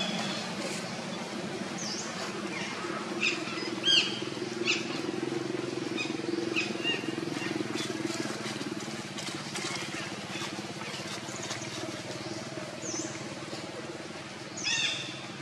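Short high-pitched chirping squeaks, scattered singly and in small groups, the loudest about four seconds in and near the end, over a steady low hum.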